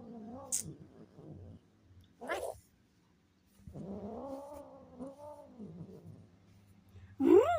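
A cat yowling: several long, drawn-out wavering calls, their pitch bending up and down, with short gaps between them and a louder call starting near the end.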